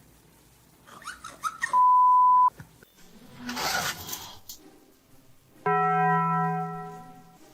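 A single loud, pure electronic beep lasting under a second, then a short noisy burst, then a steady buzzing electronic tone lasting about a second and a half that fades out.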